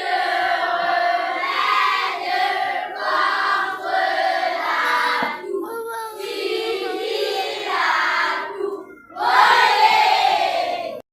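A group of young children singing together, in phrases with short breaks, cut off abruptly at the end.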